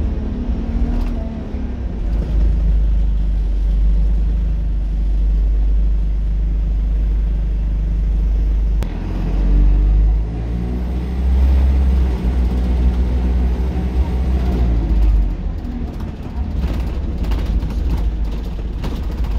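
Transbus Dart SLF single-decker's diesel engine heard from inside the saloon: a steady low rumble, rising in pitch as the bus accelerates from about nine to fifteen seconds in, then easing off again.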